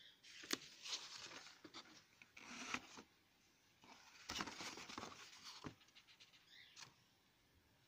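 Paper leaflets and card inserts rustling and scraping as they are handled and shuffled, in several short bursts.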